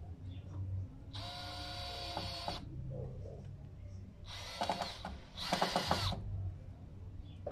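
Power drill driving screws into a wooden ladder rail: three short runs of a steady motor whine, one of about a second and a half, then two shorter ones close together, each ending in a few clicks as the screw seats.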